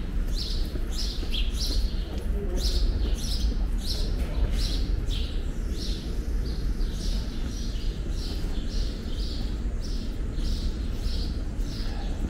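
Footsteps crunching and scraping on gritty, snow-dusted stone steps and pavement at a walking pace, about two a second, over a steady low rumble.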